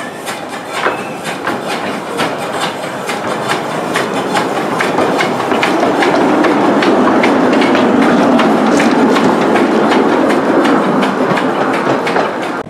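A 15-inch gauge miniature steam locomotive running light at walking pace, with a rhythmic train of clicks and puffs over a steady rush of steam. It grows louder as it draws level, loudest a little past the middle.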